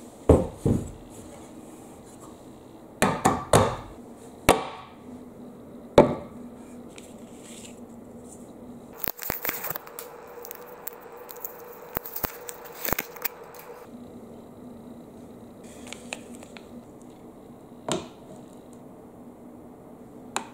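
Wooden stools and blocks being set down and knocked together, giving a row of sharp wooden knocks through the first six seconds. Then about five seconds of crinkling and crackling with small clicks as a strip of aluminium tape is handled and pressed onto a wooden block. One more knock near the end.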